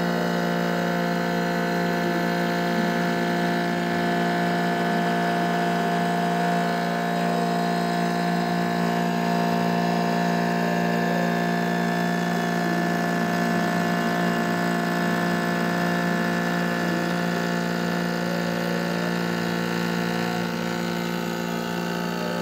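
Pocket NC desktop five-axis CNC mill running as it cuts a chamfer on an aluminium part: a steady spindle whine with several fixed tones, while the axis motors sweep up and down in pitch every few seconds as the rotary table tilts and turns the part.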